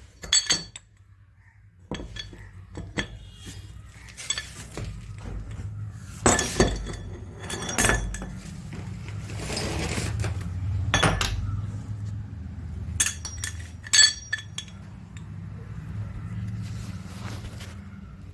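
Metal tools and parts clinking and knocking in an irregular series of sharp strikes, some of them ringing, while a bit stuck in a rotary hammer drill is worked loose. A low steady hum sits underneath from about two seconds in.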